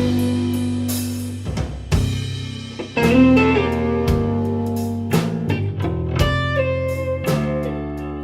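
Electric blues band playing live: electric guitar, bass guitar and drum kit, with long ringing guitar notes over bass and regular cymbal and drum hits. The song is still in its instrumental opening, before any singing.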